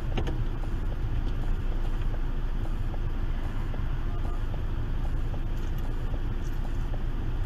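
Steady low rumble of a car picked up by its dashcam microphone: engine and road noise.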